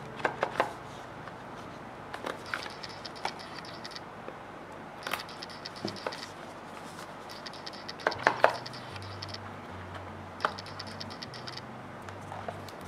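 Fingers knocking and scratching on a rigid black cardboard gift box as it is turned over and its seal picked at, with scattered sharp taps, three quick ones about half a second in and a louder cluster of three about eight seconds in. A camera's autofocus motor whirs faintly in short stretches that start and stop.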